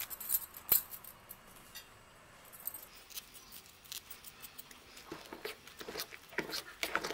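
Spoon stirring thick idli batter in a steel pan, with light clicks and scrapes against the metal. A few soft clicks come in the first second; the stirring and scraping grow busier from about five seconds in.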